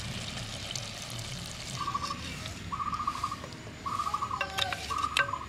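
Thick curry bubbling and being ladled from a clay pot, with a ladle clinking twice against a steel plate near the end. From about two seconds in, a bird calls in short trills repeated about once a second.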